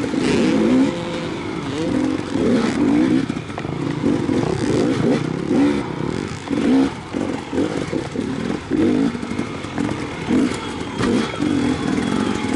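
Enduro dirt bike engine heard close up from on the bike, revving up and down in quick, repeated throttle bursts as it is ridden over a dirt race track.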